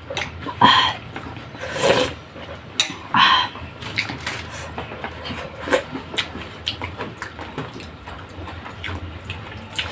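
A person eating soup with vegetables, chewing and slurping, with short irregular clicks and smacks and a few louder slurps in the first few seconds.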